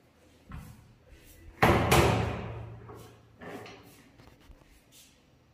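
Built-in wardrobe doors being handled: a soft thump, then a loud bang about one and a half seconds in that rings on for about a second, and a lighter knock a little later.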